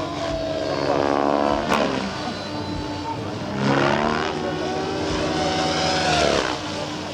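Radio-controlled Compass Chronos 700 helicopter flying aerobatics, its rotor and motor whine rising and falling in pitch, loudest about a second in, around four seconds and again near six seconds.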